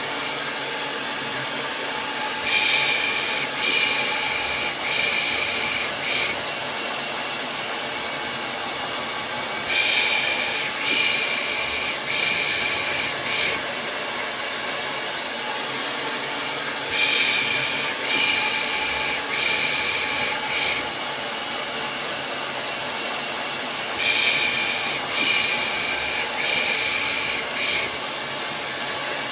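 Hair dryer blowing steadily, with a soft 'pış pış' shushing, the kind used to soothe a baby, repeated over it in groups of four or five, about one shush a second and a new group every seven seconds or so.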